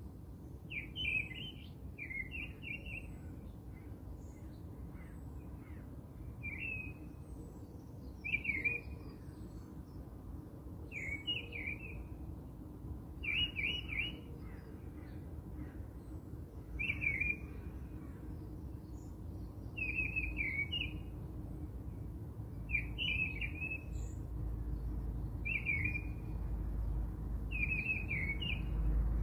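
A bird singing the same short chirping phrase over and over, about every two to three seconds, over a low steady background rumble that grows louder near the end.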